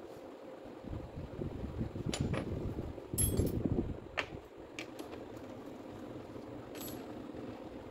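Small metal parts of a dismantled Makita M8700 rotary hammer (gears, bearings, spindle pieces) being handled and set down on a workbench: a handful of light, scattered clinks and clicks, with the rustle of a cloth rag and gloved hands in between.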